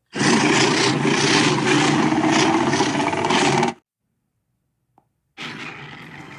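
Carcharodontosaurus sound effect: a loud, rough dinosaur roar lasting about three and a half seconds that cuts off suddenly. After a short silence, a second, quieter call begins near the end.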